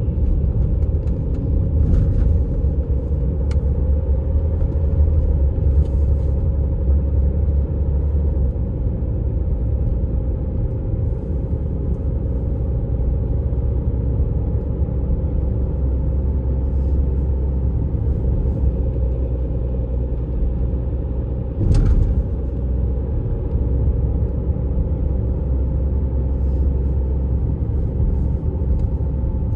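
Diesel all-wheel-drive vehicle being driven, with a steady low rumble of engine and road noise and a steady hum above it. A few light clicks are heard, and one brief thump comes about three-quarters of the way through.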